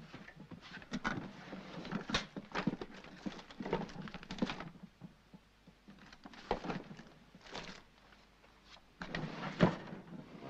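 Rummaging in a wooden drawer: rustling and scraping with a few sharp knocks, the loudest a little before the end.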